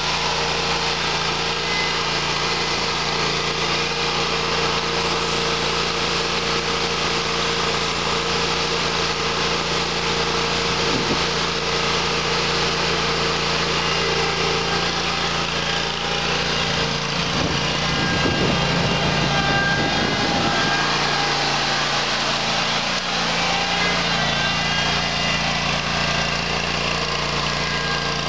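Engine of a Grasshopper 727K zero-turn mower, a 27 HP Kohler EFI gas V-twin, running steadily as the mower drives along. A short low rumble and a shift in the engine's note come about two-thirds of the way through.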